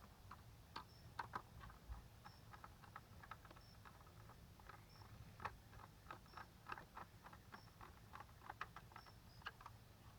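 Faint, irregular small clicks and ticks of a manual screwdriver turning small screws into a 1:18 scale diecast model car.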